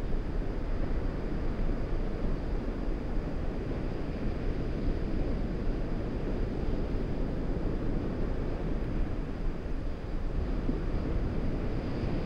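Wind buffeting the microphone: a steady low rumbling rush with no distinct events.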